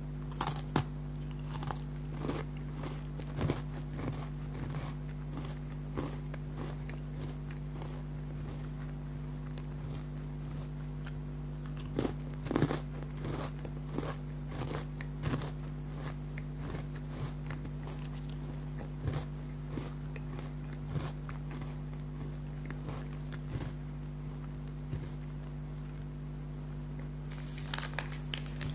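Close-up biting and chewing of crunchy chocolate biscuits: scattered crisp crunches, busiest around the middle. Near the end a run of crinkling begins, like packaging being handled.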